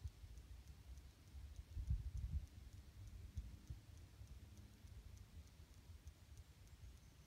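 Quiet outdoor ambience: low bumps and rumble on the microphone, loudest about two seconds in, over faint high ticking at about four a second.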